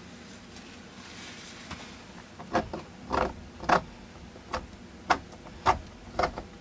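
Oil paint being dabbed onto a stretched canvas with a painting tool: after a couple of seconds of quiet room tone, a run of short taps about two a second.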